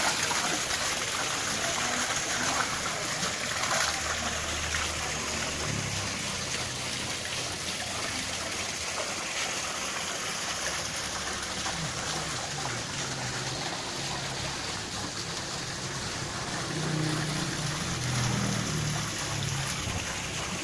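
Water running and trickling down an artificial rock-garden waterfall, a steady splashing rush.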